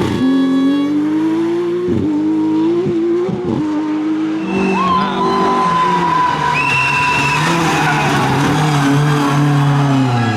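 Rally car engine at high revs with a few brief dips, then tyres squealing in a slide for several seconds from about halfway, over the engine running at lower revs.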